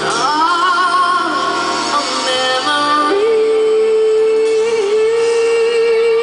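Live pop ballad: a woman singing over piano accompaniment, her line rising early on and then holding one long note from about three seconds in.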